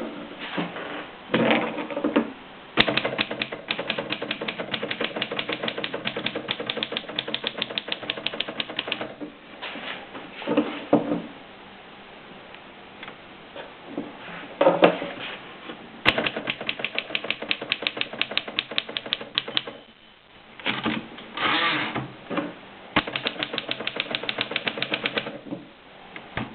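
1930 Royal P typewriter being typed on: fast runs of even key strikes, broken by short louder rattles and brief pauses.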